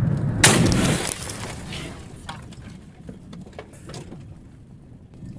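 A sudden loud crash of a head-on sideswipe between two trucks, about half a second in. It fades into rumbling and a few scattered knocks and rattles as the struck truck runs toward the snowy roadside.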